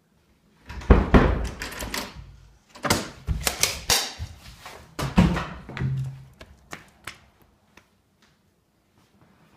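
A quick flurry of thumps, knocks and rustling, loudest in the first few seconds and dying away by about seven seconds in.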